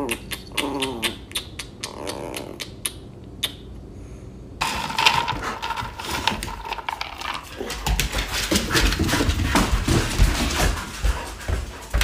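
A small puppy growls briefly, followed by a run of sharp clicks. About five seconds in, dry dog kibble rattles and scrapes as a scoop digs through a plastic bin full of it.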